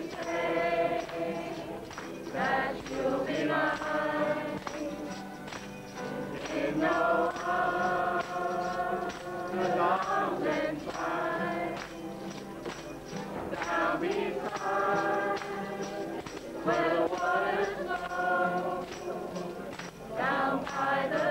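A group of mixed voices singing together in unison to a strummed acoustic guitar, with tambourines shaken and tapped along in rhythm. The singing comes in phrases a few seconds long.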